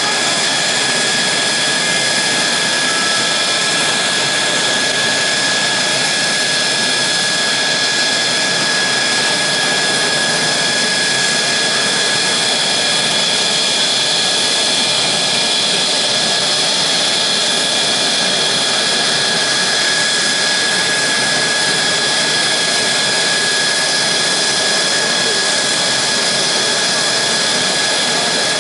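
Mitsubishi F-2 fighter's single General Electric F110 turbofan running steadily during a ground engine run-up. It makes a constant jet rush with a high-pitched whine of several steady tones and no change in power.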